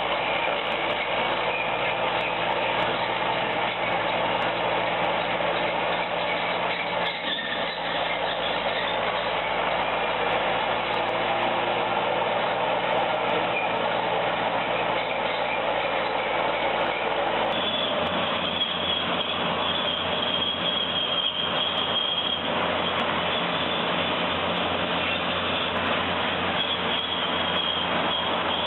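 Heavy machinery engine running steadily with a constant mechanical din. About two-thirds of the way through, the sound changes abruptly: the low hum drops away and a steady high whine comes in.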